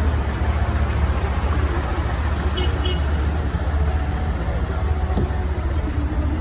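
Motor vehicle running with a steady low rumble under road and traffic noise. Two brief high chirps come about halfway through.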